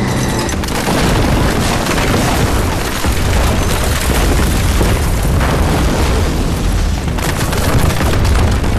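Film soundtrack of an air raid: loud bomb explosions going off one after another with no break, merging into a continuous rumble.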